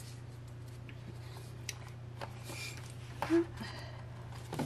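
Soft rustling and light clicks from a DVD box set's binder-style packaging and disc sleeves being handled, over a steady low hum.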